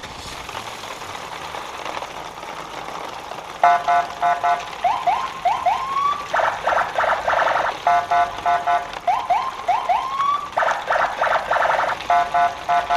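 Electronic car-alarm sound: a noise swells for a few seconds. Then, from about three and a half seconds in, a repeating alarm cycle runs: rapid beeps, a few rising whoops, and a fast pulsing buzz, each cycle about four seconds long.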